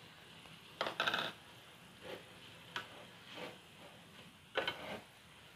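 Slotted plastic spatula knocking and scraping against a pan while tossing pasta: a handful of short knocks and scrapes, the loudest about a second in.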